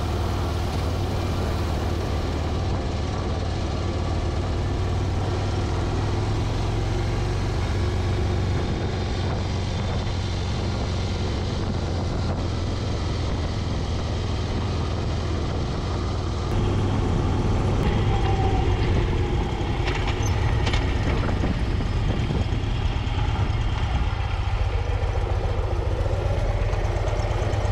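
Motorcycle engine running steadily while riding, with wind and road rush on the bike-mounted microphone. The sound steps up a little louder about two-thirds of the way through.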